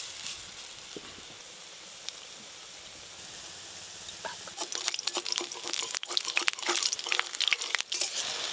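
Pointed-gourd-leaf fritters frying in hot mustard oil in a wok. It starts as a steady sizzle, and from about halfway it turns into louder, busier crackling and popping.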